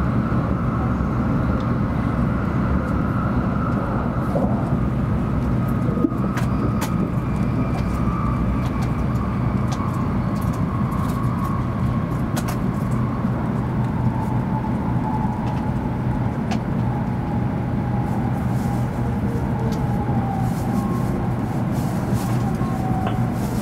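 Cabin noise of a JR Central 700 Series Shinkansen running: a steady rumble with a faint whine that slowly falls in pitch as the train slows, and a few sharp clicks.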